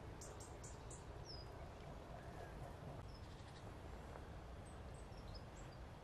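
Faint outdoor ambience with a low steady rumble, and a few faint, short, high small-bird chirps scattered through it, including a quick run of four ticks about half a second in.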